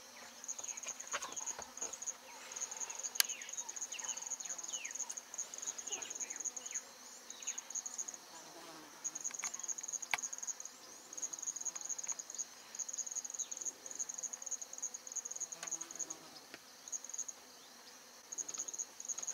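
Insects trilling in a high, finely pulsed drone, broken now and then by short pauses, with faint short chirps and two sharp clicks behind it.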